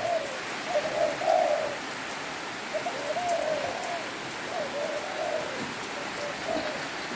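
Spotted doves (tekukur) cooing, one phrase after another, over the steady hiss of rain.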